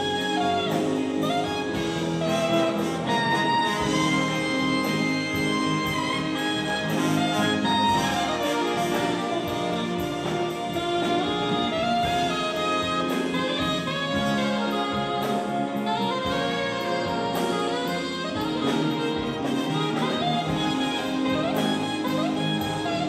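Big band playing jazz live, led by an alto saxophone over a section of saxophones, trumpets and trombones, with guitar and drums keeping a steady beat.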